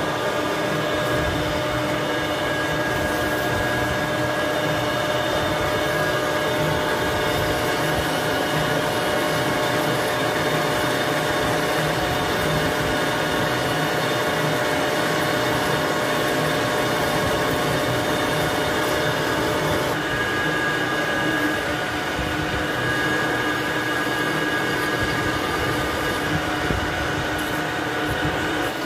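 Metal lathe running while drilling into a spinning workpiece under coolant: a steady machine drone with several even tones over the noise, changing slightly about twenty seconds in.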